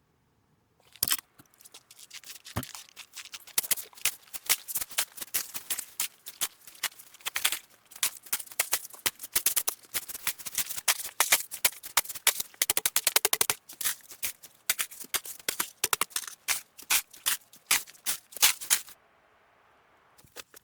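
Wood fire crackling in a stove: a dense run of irregular sharp snaps and pops that starts about a second in and cuts off abruptly near the end.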